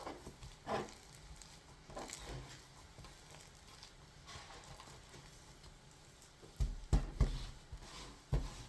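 Sticky, mushy slime being squished and pulled by hand, with soft crackly squelches and small pops; a few louder pops come near the end.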